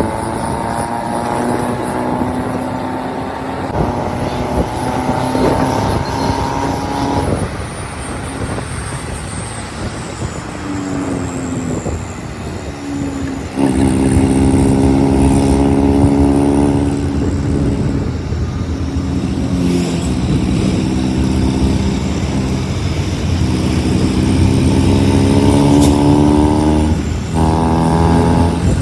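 Diesel vehicle engine pulling hard on a mountain road. Its pitch climbs under load, drops at gear changes (about a quarter, about halfway and near the end), and runs louder through the second half.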